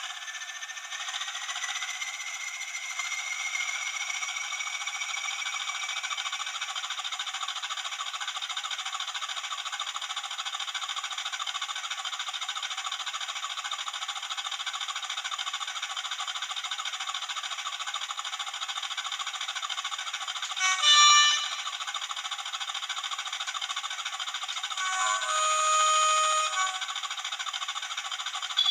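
Hornby TTS sound decoder in an OO-gauge Class 20 model locomotive playing an English Electric diesel engine idling through its small speaker, thin with no bass, with a rising whine over the first few seconds as the engine note winds up. Two horn blasts near the end: a short high note, then a longer lower one.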